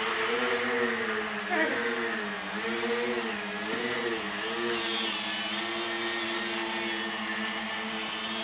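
Tricopter's three motors and propellers buzzing in flight, the pitch rising and falling for about the first five seconds, then holding steady.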